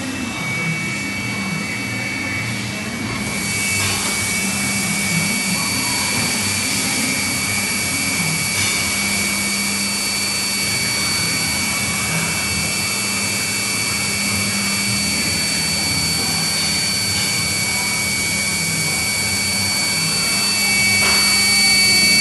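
Matsuura MC-660VG vertical machining centre running under power, a steady machine hum with several high whining tones. A rushing hiss joins about three seconds in, and the sound grows a little louder near the end.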